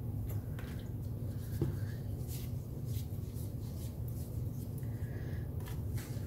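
A steady low hum under faint, soft rubbing and scratchy swishes as a hand spreads oil over rolled-out paratha dough.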